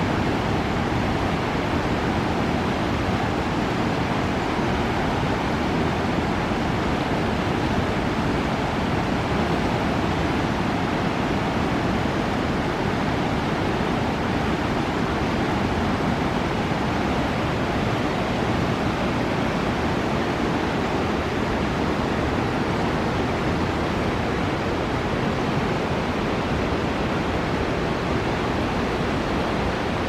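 Steady rush of river water running over shallow rapids, an even noise that does not change.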